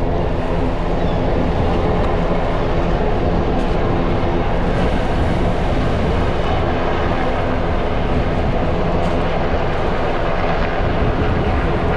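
A loud, steady engine drone, unchanging throughout.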